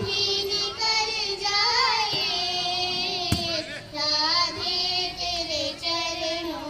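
A young girl singing, in long held notes that waver and bend in pitch, with a short click about three seconds in.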